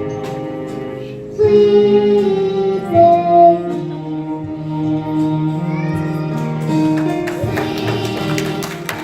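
A child singing a song with musical accompaniment; the voice comes in louder about one and a half seconds in.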